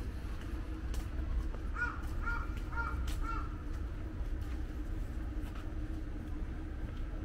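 A crow cawing four times in quick succession about two seconds in, over a steady low rumble.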